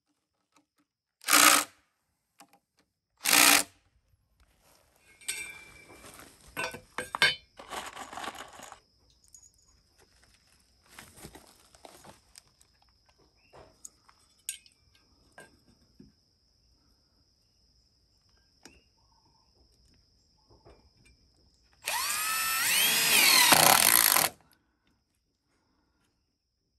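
Power drill run in two short bursts, then small clicks and knocks of handling, then a longer run of about two and a half seconds near the end, its pitch rising and wavering.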